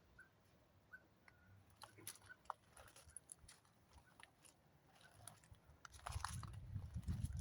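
Faint crunching footsteps on a garden path, growing louder about six seconds in, while a bird repeats a short high call a few times in the first couple of seconds.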